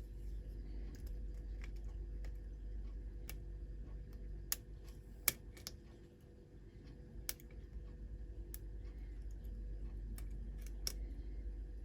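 Lock pick working the pins of a pin-tumbler challenge lock: irregular small metallic clicks and scratches as the pins are probed and set, the sharpest clicks about halfway through. A steady low hum runs underneath.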